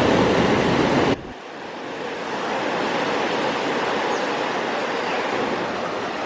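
Ocean surf rushing steadily. It drops abruptly about a second in, then continues a little quieter.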